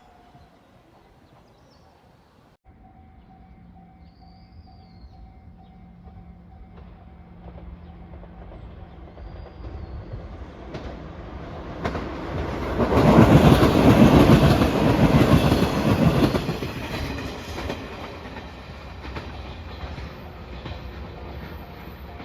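A train approaching and passing close by: the rail noise builds, is loudest for about four seconds just past the middle, then eases off.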